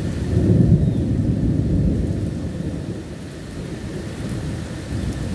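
Thunder rumbling low, swelling about half a second in and slowly fading over the next two seconds, over steady rainfall.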